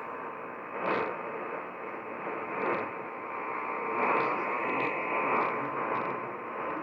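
AM radio receiving a weak distant station: steady hiss and static, cut off above the treble, with short crackles every second or two.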